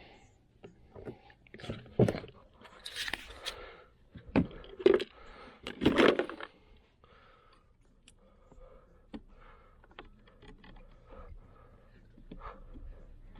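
Irregular handling noises: scrapes, rustles and knocks, several louder ones in the first half, then fainter scattered ticks.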